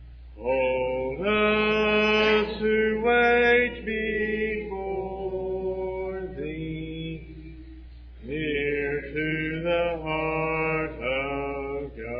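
Congregation singing a hymn a cappella, many voices holding long notes that change pitch every second or so, with a brief lull near the middle.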